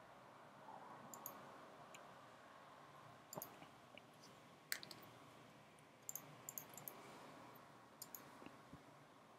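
Faint computer mouse clicks over quiet room tone, some single and some in quick pairs or small clusters, the sharpest about halfway through.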